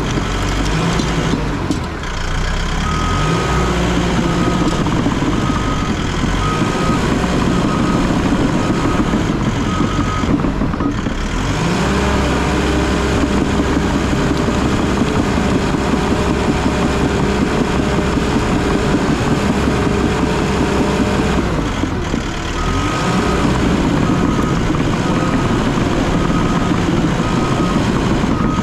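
Bulldozer's diesel engine running under load, its pitch shifting as it works. Its backup alarm beeps about once a second while it reverses, once early on for about seven seconds and again near the end.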